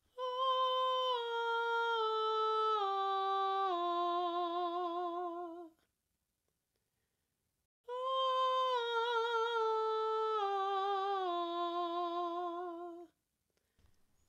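A woman's recorded voice singing two five-note descending scales, each about five seconds long with a pause of about two seconds between them. The vibrato is inconsistent, wavering on some notes and held straight on others: the alternating pattern of vibrant and less vibrant sound typical of students who do not yet sustain vibrato across changing pitches.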